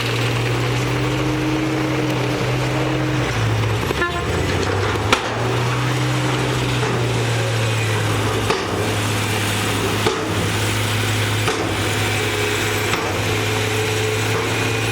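Komatsu D58E bulldozer's diesel engine running steadily under load, the pitch dipping briefly about three and a half seconds in, with a few sharp metallic clanks scattered through.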